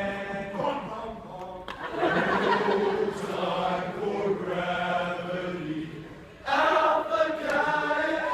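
A group of voices singing in unison in held notes, breaking off briefly about six seconds in before coming straight back.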